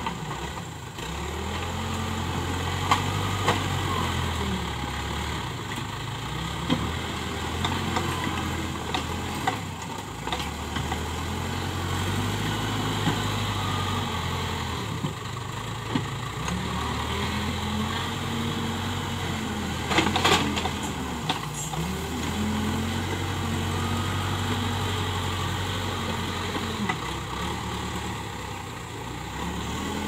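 Case 580K backhoe loader's diesel engine running and revving up and down repeatedly as the machine moves and pushes soil with its front bucket. Sharp metallic clanks come a few times, the loudest about twenty seconds in.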